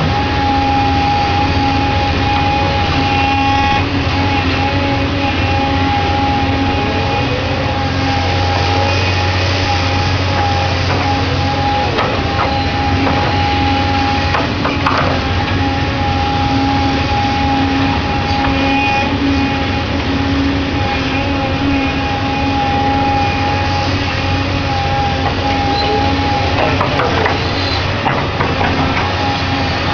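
Doosan DX235LCR excavator running steadily while working, its engine hum carrying a constant high whine, with brief shifts in pitch a few times as it works.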